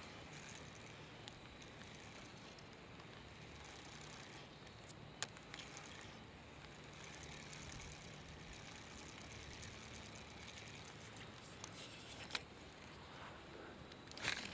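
Faint steady outdoor background noise with a few isolated sharp clicks, one about five seconds in and a louder cluster near the end.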